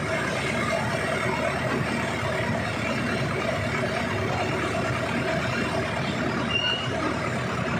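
Yanmar diesel engine of a TZCO TZ60 mini excavator running steadily while its boom is hydraulically lowered and stowed. A short high tone sounds once, about six and a half seconds in.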